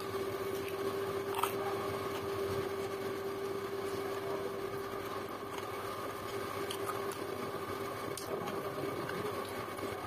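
A steady background hum with a constant tone, over faint eating sounds: chewing and a few small clicks as fingers pick rice and side dishes from a plate.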